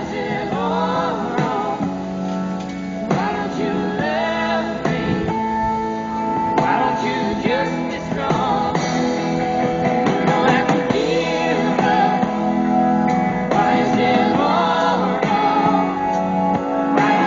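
A recorded song playing: a sung melody over a band accompaniment.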